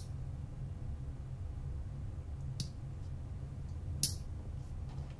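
Wago lever connectors clicking as their levers are snapped shut on stripped wires: a few sharp clicks, the loudest about four seconds in, over a low steady hum.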